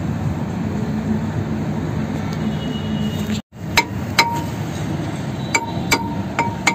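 A hammer tapping a car's rear brake drum, about six sharp metallic clinks, each with a short ring, while the drum is being freed from the hub. Before the taps there is a steady low hum of background noise that cuts out abruptly about three and a half seconds in.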